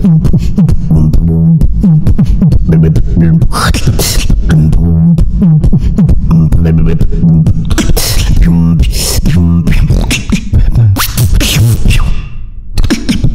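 Vocal beatbox routine performed close into a microphone: deep hummed bass tones broken into a rhythm under sharp snare- and hi-hat-like mouth sounds, with a brief drop in loudness near the end.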